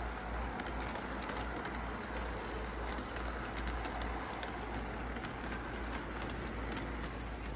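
Model train running past on its track: wheels and motor giving a steady rolling whir with many small clicks as the cars go over the rail joints, over a constant background hiss and low hum.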